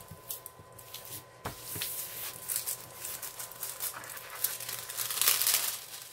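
Plastic cover film on a diamond painting canvas crinkling and rustling as hands smooth and flatten the curled canvas, loudest about five seconds in.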